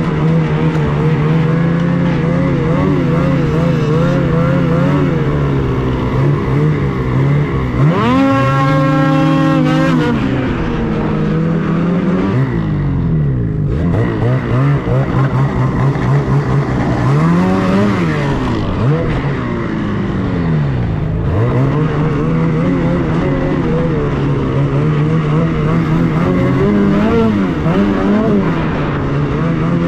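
Ski-Doo Freeride snowmobile's two-stroke engine running and revving with the throttle. It climbs sharply in pitch about eight seconds in, holds, then drops, and eases off and picks up again several times after that.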